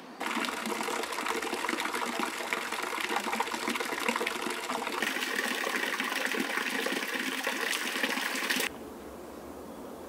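Running water splashing steadily, a dense crackling rush that shifts slightly in tone about halfway through and cuts off abruptly near the end.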